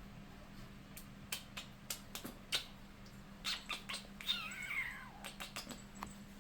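A pet's high-pitched cry that falls in pitch over about a second, a little past halfway, among scattered sharp clicks.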